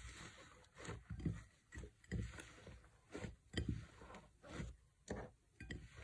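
Slime being squeezed and pressed by hand, giving a run of irregular wet squishes and small crackles, about two a second.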